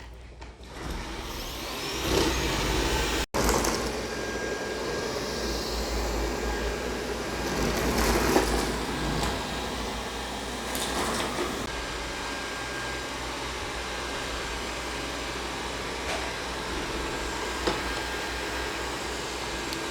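Dreame D9 robot vacuum running a spot-clean cycle on a hardwood floor: steady suction noise with a faint high whine, swelling louder now and then as it moves.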